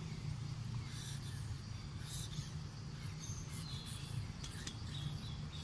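Faint outdoor background noise: a low steady rumble with scattered faint ticks and a few high chirps.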